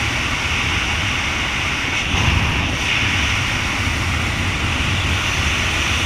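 Small propeller plane in flight: a steady low engine drone under heavy wind rush on the outside-mounted camera, briefly louder about two seconds in.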